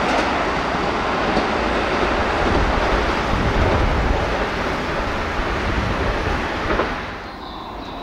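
Keisei 3700 series electric train passing at about 78 km/h: a steady rushing rumble of wheels on rail that drops away suddenly about seven seconds in.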